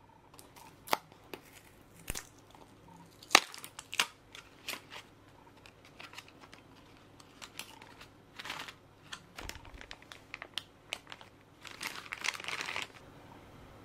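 Small cardboard blind box being opened by hand: a string of sharp clicks and snaps as the flaps are pried open, the loudest a few seconds in. Near the end, a clear plastic bag holding a small figure crinkles as it is handled.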